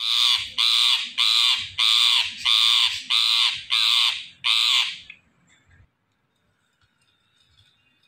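Indian ringneck parakeet screeching: about nine loud, harsh calls in quick succession, stopping about five seconds in.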